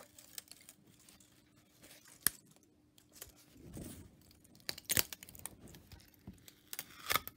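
A 3D-printed plastic part cracks and crackles as it peels away from a flexible build-plate sheet being bent by hand, with the print popping loose in a few sharp cracks: one about two seconds in, a cluster around five seconds, and one near the end.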